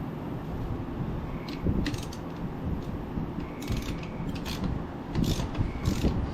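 Irregular metallic clicks and clinks of tools and parts being worked on a scooter's rear wheel and brake, over the steady hum of a shop fan.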